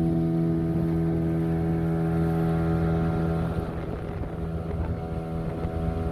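Motorboat engine running at a steady speed, one unchanging hum over a low rumble of wind and water. It becomes a little quieter about three and a half seconds in.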